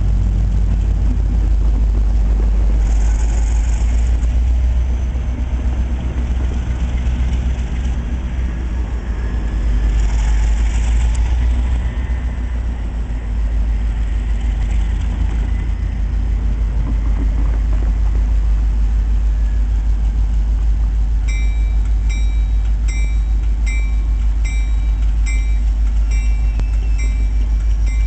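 Diesel locomotive engine running with a steady low rumble, with two brief hisses in the first half. About three-quarters of the way through, the locomotive's bell starts ringing, striking a little more than once a second.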